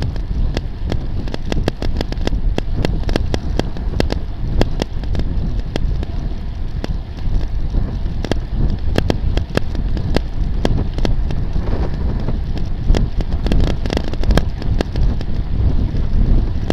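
Wind rushing over a bicycle-mounted camera's microphone while riding, with a low road rumble and frequent sharp clicks and rattles scattered irregularly throughout.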